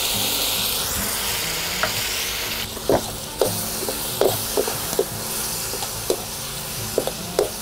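Pork belly pieces sizzling in a pan with chili sauce while a metal spatula stirs them. The sizzle eases a little after about two and a half seconds, and from about two seconds in the spatula clicks against the pan about ten times.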